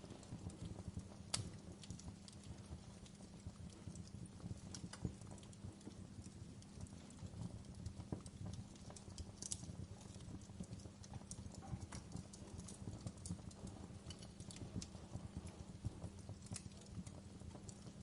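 Fire crackling: scattered sharp pops and snaps over a steady low rumble of the flames.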